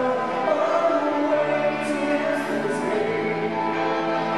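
Live rock band playing: sung vocals over held chords, with cymbal crashes about two seconds in.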